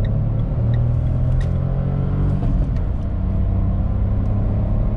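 Renault car driving on the road, heard from inside the cabin: a steady low engine hum with tyre and road noise.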